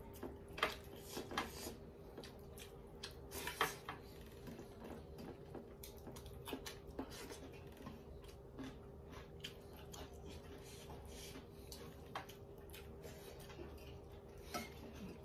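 Eating by hand from brass plates: fingers mixing rice and dal against the metal and chewing, heard as a scatter of small clicks and squishes.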